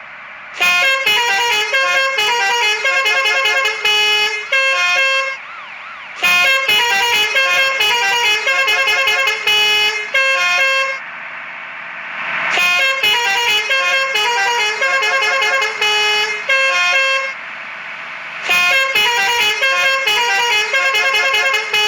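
Indonesian bus telolet horn, a multi-tone air horn, playing a fast melody of short notes, loud, in four bursts of about four to five seconds each with short pauses between.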